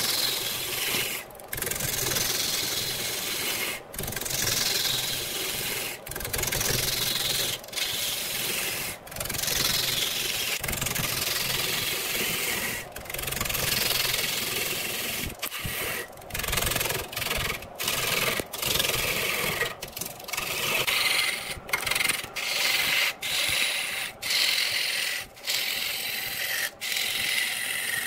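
A lathe gouge cutting into a large pale wood blank spinning on the lathe, a continuous scraping hiss of shavings being torn off. It breaks off briefly every second or two as the tool's cut changes.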